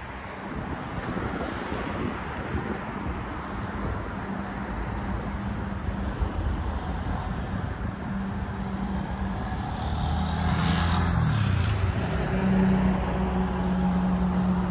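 Road traffic: cars passing on a street, one going by close about ten seconds in with its engine note dropping as it passes, and a steady engine hum near the end.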